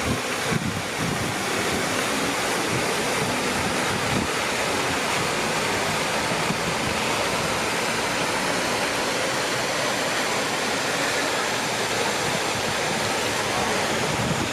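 Water of the Cascada Monumental, a large stone fountain-waterfall, pouring and splashing into its basin: a steady, even rush of falling water.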